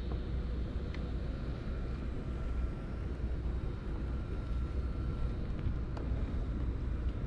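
Wind rumbling and buffeting on the microphone outdoors on open water, with a faint steady hum from a distant engine and a couple of faint clicks.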